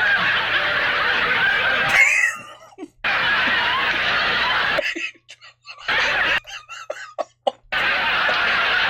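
Studio audience laughing in long waves, broken twice by short lulls.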